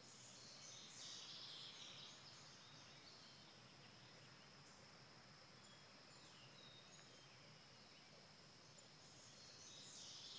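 Faint outdoor ambience: a steady thin high tone over low hiss, with small birds chirping about a second in and again near the end.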